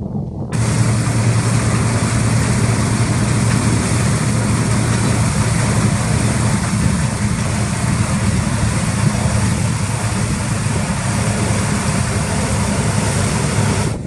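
New Holland CX 860 combine harvester running at working revs while threshing wheat: a steady low engine drone under an even, loud hiss of the threshing and straw-chopping machinery, setting in about half a second in.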